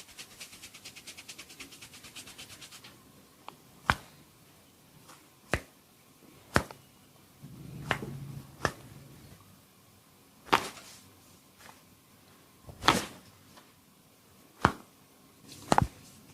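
Fingernails scratching rapidly and evenly over an oiled scalp for about the first three seconds, then about eight sharp hand smacks on the head, one to two seconds apart, as in a percussive barber's head massage.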